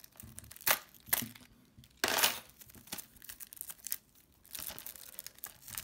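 Plastic shrink-wrap on a Blu-ray case being slit with a key and torn off: two short sharp clicks in the first second or so, a tearing rip about two seconds in, then lighter crinkling of the plastic.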